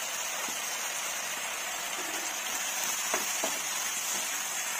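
Brinjal curry with onion and tomato sizzling steadily in a non-stick pan on the stove. A few short clicks from the spatula stirring it come about three seconds in.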